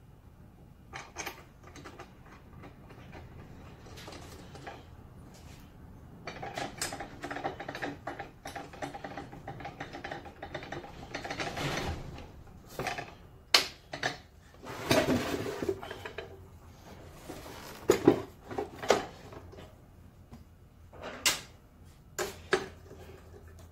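Metal parts of a Delta compound miter saw handled and adjusted by hand with the motor off: scattered clicks and clanks, a stretch of rattling and scraping in the middle, and several sharp knocks in the second half.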